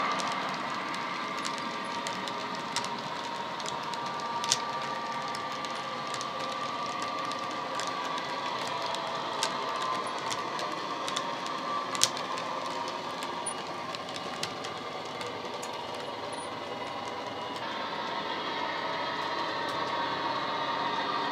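Model Class 57 diesel locomotive's digital sound, an ESU LokSound decoder playing a diesel engine running under load through a small EM1 speaker, with a steady humming tone. It grows fainter, then louder again near the end, and a few sharp clicks from the model wheels on the track come through.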